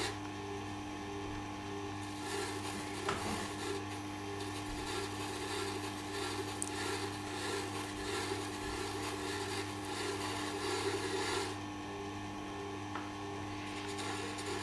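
A Tormek sharpener's motor hums steadily while the edge of a serrated knife is held against its turning felt honing wheel to deburr the serrations. A soft rubbing hiss is stronger from about two seconds in until about eleven seconds in.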